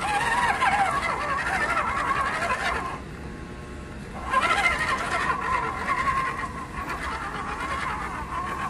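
Electric motor and gearbox of an RC Unimog crawler truck whining as it crawls, the pitch wavering up and down with the throttle. The whine drops away for about a second a third of the way in, then comes back.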